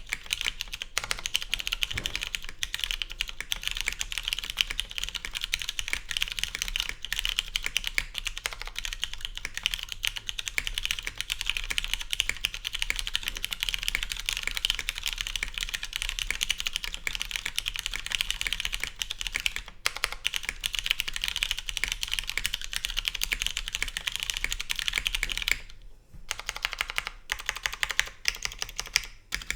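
Continuous fast typing on a custom mechanical keyboard with lubed, filmed Cherry MX Brown switches on a polycarbonate plate, unfoamed: a dense stream of keystroke clicks and clacks. About 26 seconds in the typing thins out into sparser keystrokes with brief pauses.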